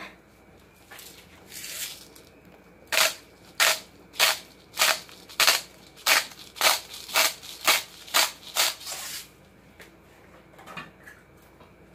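Salt shaken from a container over a pot: about a dozen crisp rattling shakes, roughly two a second, starting about three seconds in.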